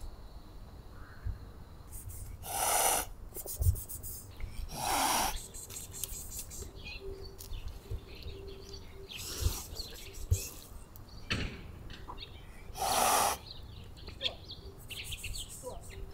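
Black-and-white tomcat hissing: about four short hisses a few seconds apart, each lasting about half a second.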